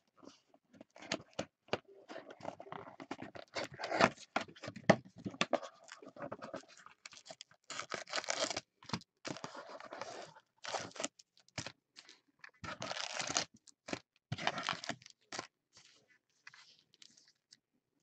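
Foil-wrapped trading-card packs being pulled out of a cardboard hobby box and stacked: irregular rustling, crinkling and scraping of wrappers against cardboard, with a couple of sharper knocks about four and five seconds in.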